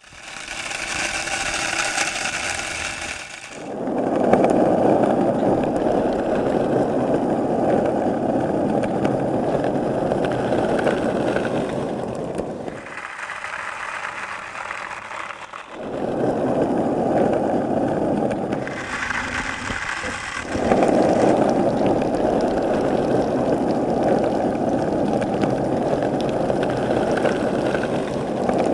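Skateboard wheels rolling steadily over pavement in long stretches, a dense rumbling hiss. These alternate with short, quieter passages of thinner, higher outdoor ambience: one at the start, one around the middle and one a little after.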